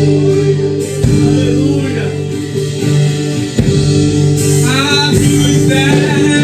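Live worship music: a band with guitar playing, with a voice singing over it.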